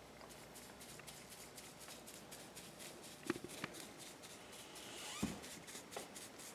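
Faint, quick scratchy strokes of a bristle brush working polyurethane varnish onto a wood carving. Two light clicks come a little past three seconds in, and a soft knock about five seconds in.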